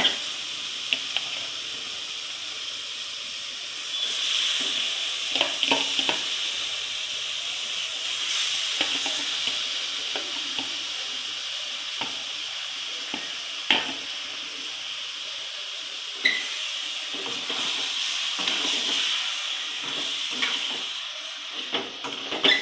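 Squid pieces sizzling as they fry in an onion-tomato masala, with no water added, while a spoon stirs them and clicks against the pan now and then. The sizzle swells a couple of times.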